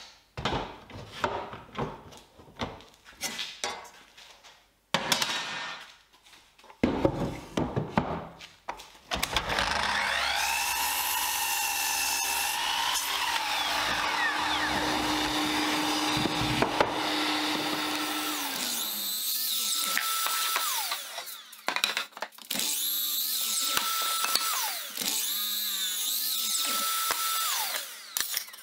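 Sliding miter saw (Festool) at work. After several seconds of knocks and clicks from clamping and handling wood, the motor starts with a rising whine and runs for a long cut through a pine board, then spins down. Three shorter runs follow, each winding down with a falling tone.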